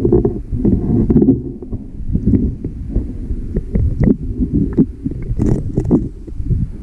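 Muffled underwater sound of a shallow rocky stream, picked up through a submerged camera's housing: a steady low rumble of flowing water with scattered ticks and knocks.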